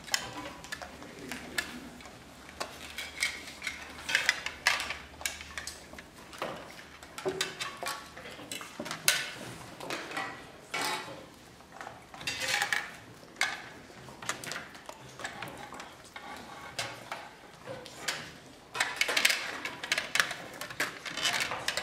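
Tableware being handled: plates, cups, trays and cutlery clinking and knocking at irregular intervals.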